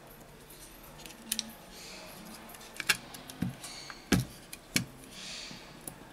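Scattered light clicks and taps of small metal tools and tiny screws against a smartphone's frame during disassembly, about half a dozen, the loudest about four seconds in.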